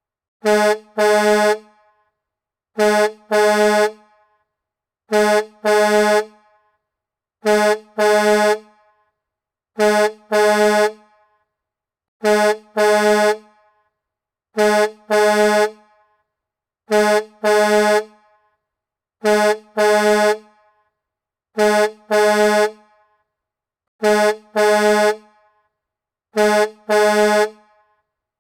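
Semi-truck horn honking in repeated pairs, a short toot followed at once by a longer blast, with the pair coming back about every two and a half seconds at a steady pitch.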